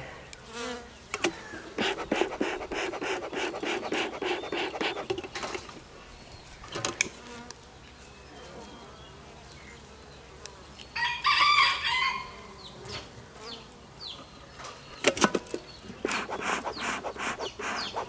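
Honey bees buzzing around the hive while a bee smoker is being lit by hand, with clicks and rustling in two stretches. A rooster crows once, briefly, about eleven seconds in.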